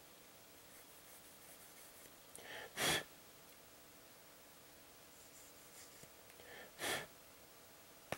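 Two short, sharp bursts of breath, about four seconds apart, each led by a softer intake.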